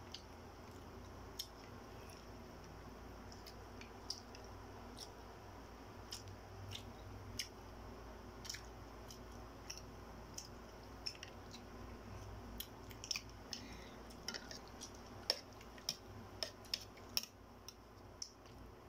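Quiet eating sounds: scattered small sharp clicks and crackles of boiled balut eggshells being peeled and a spoon clinking, with chewing. The clicks come thicker near the end.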